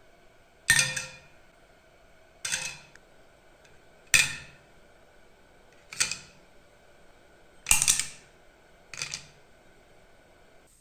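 Six sharp knocks, spaced about one and a half to two seconds apart, each dying away within half a second.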